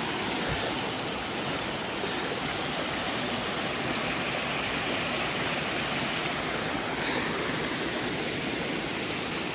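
Rain-fed hillside stream cascading over rocks in a small waterfall: steady rushing water.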